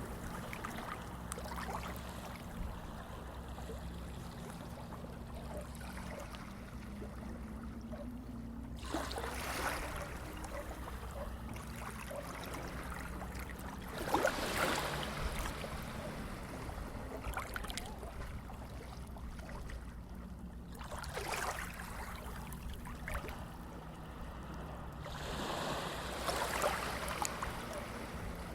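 Sea waves washing ashore: a steady wash with four louder rushes of surf spread through, over a low steady hum.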